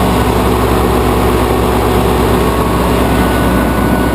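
Propane-fuelled engine of a Pelsue manhole generator running steadily after starting, an even, unchanging run.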